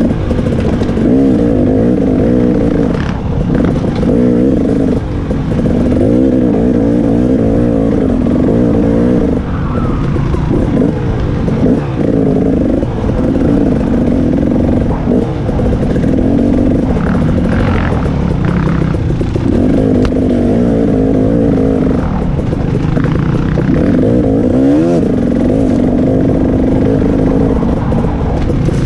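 KTM 300 XC-W Six Days single-cylinder two-stroke dirt bike engine revving up and down while ridden over rough trail, the throttle shutting off briefly every few seconds, with clatter from the bike.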